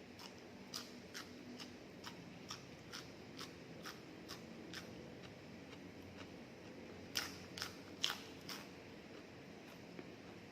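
A person chewing crunchy food close to the microphone, crisp crunches coming about twice a second, then a few louder crunches about seven seconds in.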